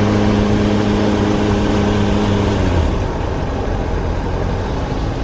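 Suzuki GSR400M inline-four engine running steadily under way, with wind and road noise on the camera mic. About two and a half seconds in, the engine note drops and fades, leaving mostly wind and road noise. The note picks up again at the very end.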